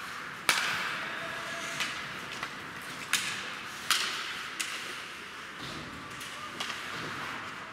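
Ice hockey play: several sharp clacks of sticks on the puck, the loudest about half a second in, over a steady scraping hiss of skate blades on the ice.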